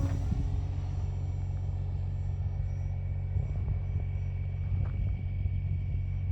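Wind rumbling on the microphone, with the faint steady whine of an RC plane's brushless electric motor at a distance.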